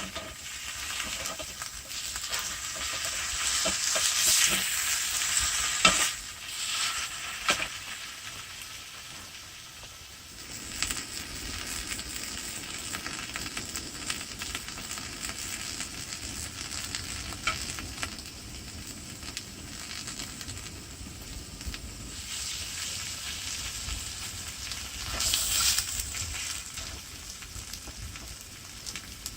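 Food sizzling and crackling in a hot frying pan, with scattered sharp pops. The sizzle swells louder twice, near the start and again near the end.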